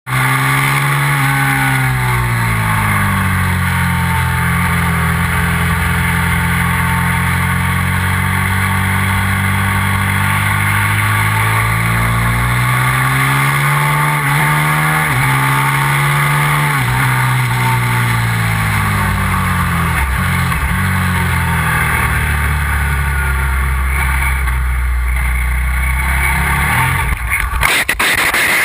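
Onboard sound of a sport motorcycle's engine at speed on a track, its pitch climbing and dropping again and again through gear changes and corners, with heavy wind noise. About a second before the end the engine note breaks off amid a few sharp knocks as the bike crashes.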